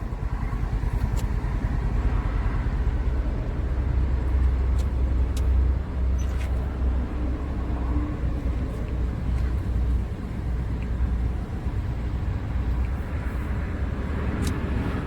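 2007 Toyota Yaris petrol engine idling steadily with a low, slightly uneven rumble, with the AC being switched on to put load on it while checking for a misfire.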